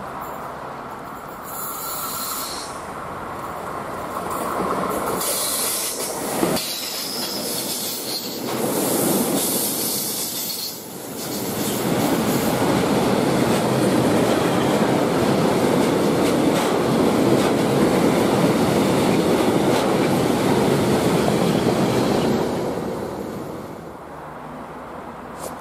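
Freight train of tank wagons passing close on the near track: steel wheels rumbling and clattering over the rails, building up and then running loud and steady for about ten seconds before dropping away near the end.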